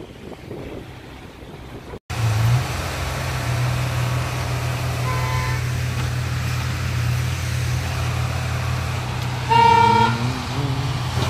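A heavy machine's engine running with a steady low drone, which starts abruptly about two seconds in. A horn gives a faint short toot around five seconds and a louder half-second toot near ten seconds.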